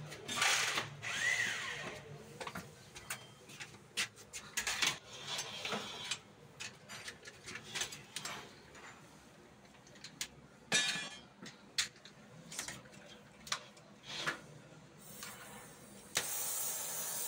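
Scattered clicks and knocks of tools and metal being handled, then near the end a gas welding torch opens with a steady hiss.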